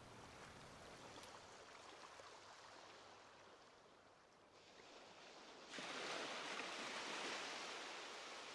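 Faint steady rushing noise with no distinct events. About six seconds in it steps up suddenly to a louder, brighter rush, which then slowly eases.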